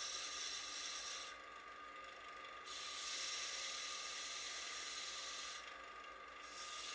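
Wood lathe running with abrasive held against the spinning wooden box, a steady rasping hiss over the machine's steady hum. The hiss breaks off twice for about a second as the paper is lifted away.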